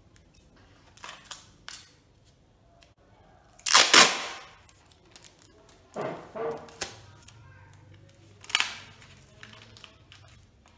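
Wide clear packing tape pulled off a large roll three times, each pull a short ripping sound of about half a second. The first, about four seconds in, is the loudest; the others come about six and eight and a half seconds in. A few light taps come earlier.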